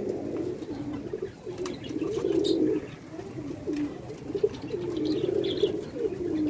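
Domestic pigeons in a loft cooing, a steady run of low, rising-and-falling coos from several birds at once.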